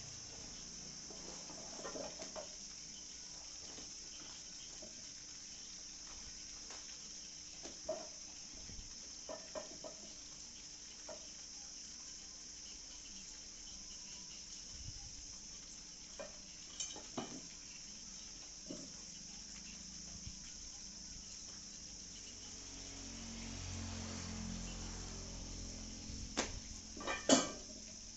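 Scattered metallic clinks and knocks of hand tools and parts being handled, over a steady high-pitched insect-like chirring. A low rumble swells and fades late on, and the loudest clink comes near the end.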